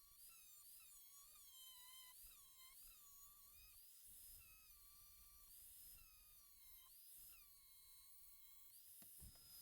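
Near silence, with a faint, high, wavering pitched tone.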